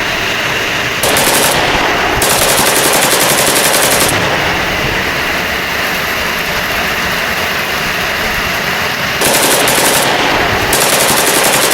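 Heavy rain pouring down, a loud, dense rush of rain that grows harsher for a few seconds near the start and again near the end.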